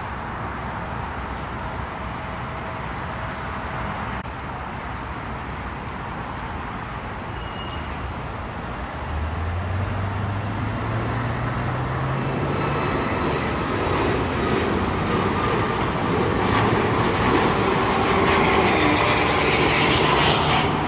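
Boeing 737 MAX jet airliner taking off and climbing out, its engines at takeoff thrust. The engine noise grows steadily louder through the second half, with a low hum rising in pitch near the middle.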